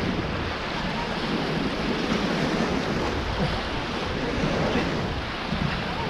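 Rushing river water around a drifting inflatable raft, a steady noise, with wind buffeting the microphone.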